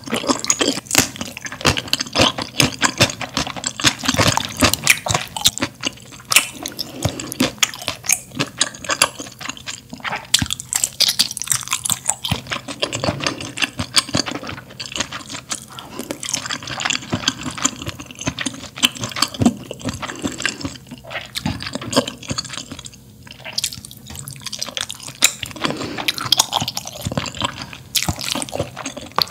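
Close-miked wet chewing of spicy malatang soup ingredients: a quick, irregular run of moist clicks and mouth sounds.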